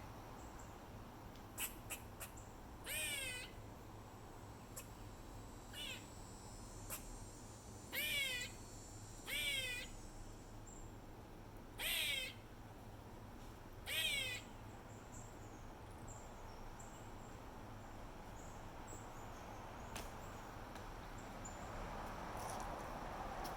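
Eastern grey squirrel repeating an odd call about six times, a few seconds apart: each call is a half-second wavering whine that drops in pitch at the end. The calls stop after about fifteen seconds.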